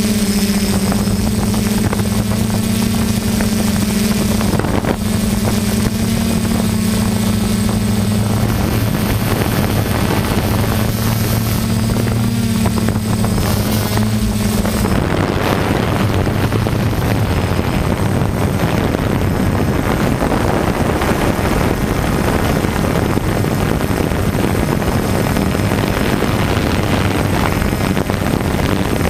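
Motors and propellers of a DJI F550 hexacopter drone, picked up by the camera it carries: a steady low hum with overtones. About halfway through it changes to a rougher, even rushing noise with only a faint hum under it.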